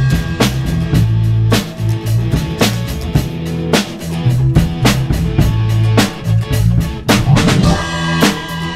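Rock band playing live: a drum kit keeping a steady beat of kick and snare under electric bass, electric guitars and keyboard.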